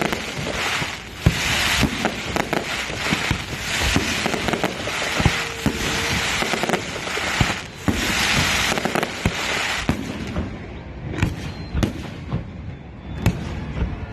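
Fireworks bursting: a dense run of crackling and bangs that thins out about ten seconds in to separate, spaced booms.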